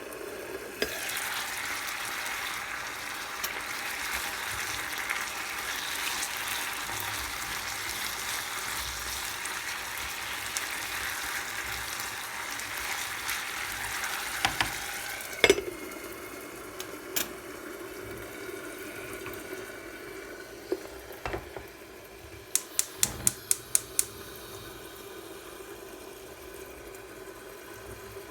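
Kitchen sounds: a steady hiss for about fifteen seconds that stops with a clunk, then a few scattered light knocks and a quick run of about six sharp clicks near the end.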